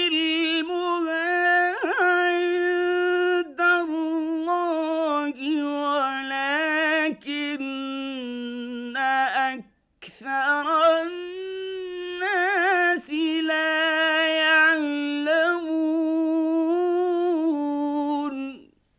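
Male Quran reciter's voice in slow, melodic mujawwad-style recitation, drawing out long ornamented notes with wavering turns. There is one breath break about ten seconds in, and the recitation stops just before the end.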